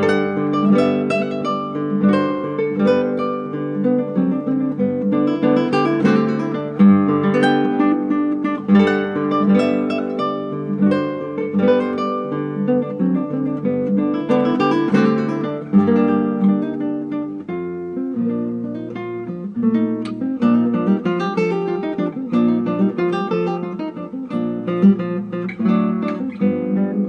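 Flamenco-style acoustic guitar music, plucked and strummed, with the bass line dropping to lower notes about two-thirds of the way through.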